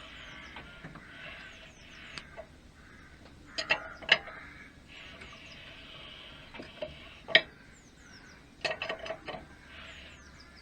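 Metal tools and engine parts clinking as they are handled and set down: a few sharp clinks about four seconds in, a louder one near seven seconds, and a quick run of clinks near the end.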